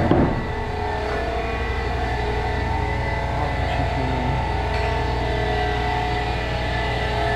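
Steady mechanical drone of workshop machinery running, with several held tones over a low hum, and a single knock just after the start.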